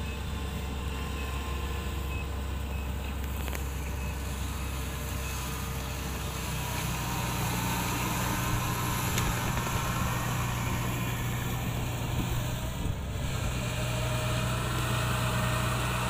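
Kubota DC-70 rice combine harvester's diesel engine running steadily, with a few evenly spaced warning beeps in the first seconds. About seven seconds in, the engine's drone grows heavier as the machine works the rice.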